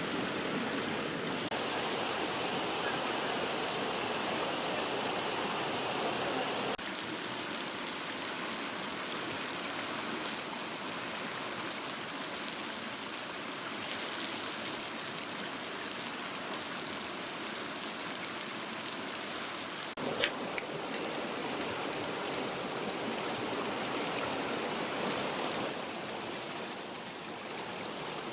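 Steady rush of a stream and small waterfall, with a couple of brief sharp clicks, one about two-thirds of the way through and one near the end.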